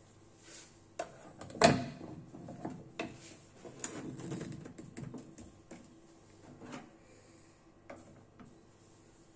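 Metal portafilter being fitted into an espresso machine's group head and twisted to lock: a sharp metal clack about one and a half seconds in, the loudest sound, then scraping and clicking as the handle is turned. A few lighter knocks follow near the end.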